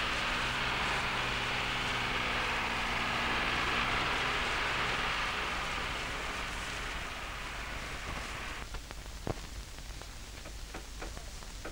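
Road-construction machinery running as a steady rushing noise with a low hum. It cuts off suddenly about eight and a half seconds in, leaving only the faint crackle and clicks of an old film soundtrack.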